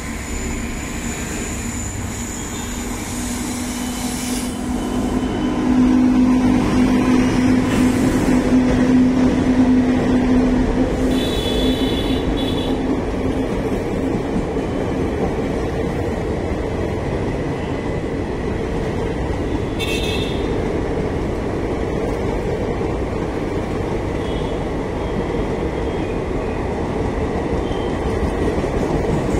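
Express passenger train running through without stopping. The sound swells about five seconds in as the locomotive draws level, with a strong low drone. Then a long rake of coaches rolls past with a steady rumble of wheels on rail and short high wheel squeals about 11 and 20 seconds in.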